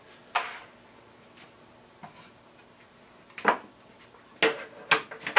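Wooden boards and a clamping tool being lifted off and set down on a workbench top: several separate knocks and clatters of wood and metal with short pauses between, closer together near the end.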